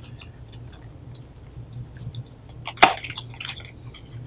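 Cardboard box and paper instruction leaflet being handled and folded shut: soft rustling and small scattered clicks, with one sharp click about three seconds in.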